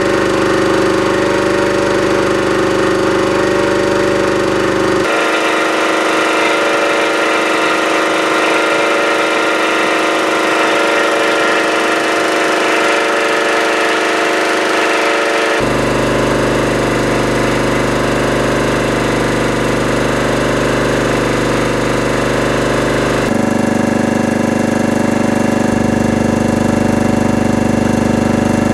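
Hatlapa V150 reciprocating ship's air compressor, rated 30 bar and driven by a 30 kW electric motor at 1800 rpm, running steadily under pressure. The loud, even machine noise changes abruptly in tone three times, about five, fifteen and twenty-three seconds in.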